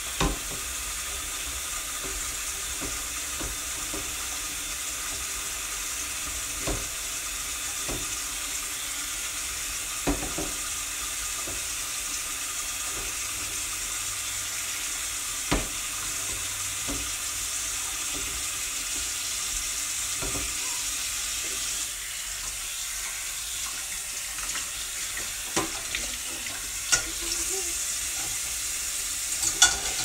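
A steady, even hiss, strongest in the treble, with a few scattered sharp clicks or taps.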